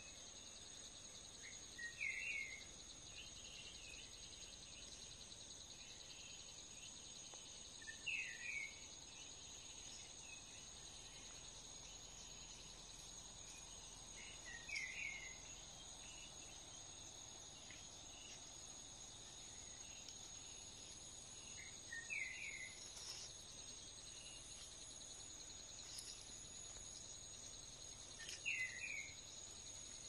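Insects trilling steadily in a faint, high-pitched chorus. A short call of a few quick notes, from another animal, repeats about every six to seven seconds.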